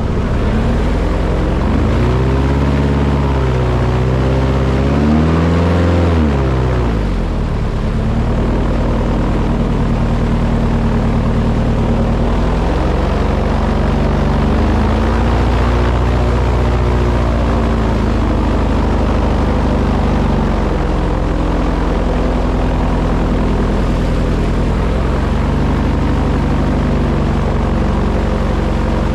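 A boat's engine running continuously, its speed rising and falling: several quick revs up and down in the first few seconds, then a steadier run with slower swells in speed.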